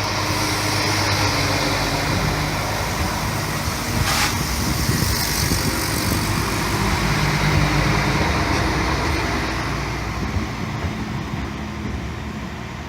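Electric train running through the station, a steady rumble with low humming tones, fading over the last few seconds. A short sharp noise sounds about four seconds in.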